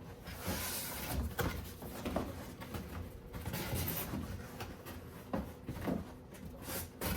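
Cardboard display box being handled: flaps pulled open and creased, giving irregular rustling and scraping with a few light knocks.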